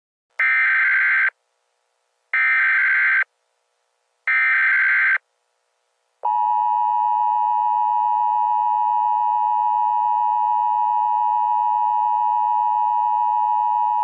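Emergency Alert System tones: three short buzzy bursts of SAME header data, each about a second long, then the steady two-tone EAS attention signal, held for about eight seconds, announcing a new alert.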